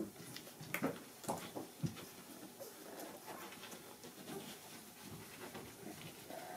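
Newborn English setter puppies nursing: a few short, high squeaks about a second in, then soft suckling and breathing noises as they push at the teats.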